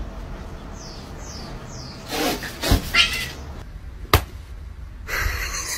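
Cats and kittens: three brief falling high squeaks near the start, then louder stretches of noise and one sharp knock about four seconds in.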